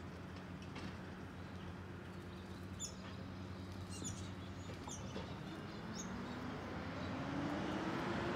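Distant garbage truck's diesel engine running steadily, then rising in pitch and growing louder over the last two seconds as the truck accelerates. A bird gives four short chirps, about a second apart, around the middle.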